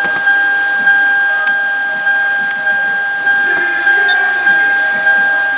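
Car's electronic warning chime repeating steadily, about one and a half dings a second, each ding a clear high two-note tone.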